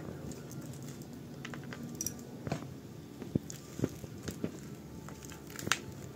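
Fingers crumbling old potting soil off a succulent's root ball, with clumps and grit falling into a plastic tub as irregular small taps and crackles.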